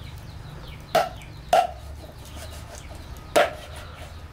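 Meat cleaver chopping through a plucked goose's neck into a wooden chopping block: three sharp strikes, one about a second in, another half a second later, and a third near the end.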